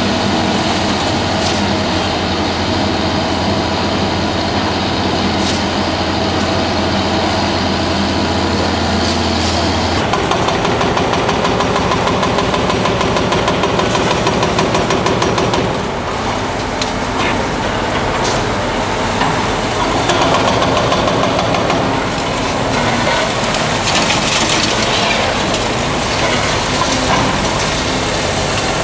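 Large hydraulic demolition excavators working, their diesel engines running steadily under load, with occasional knocks and clatter of broken concrete and a faint high whine in the second half.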